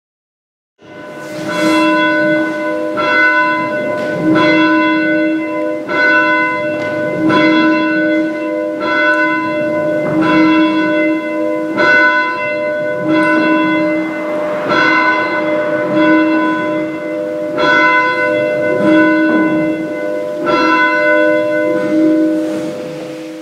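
A single church bell tolling, struck about every second and a half, its hum ringing on between strokes. It begins about a second in and fades away near the end.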